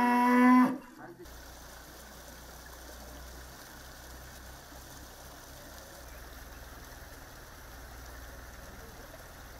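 A cow mooing, one long call that ends just under a second in. Then a steady rush of floodwater flowing.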